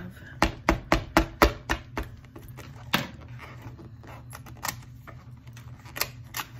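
Fingers poking and pressing at the perforated door of a cardboard advent calendar that won't push open: a quick run of about six sharp taps in the first two seconds, another about three seconds in, then lighter scattered clicks.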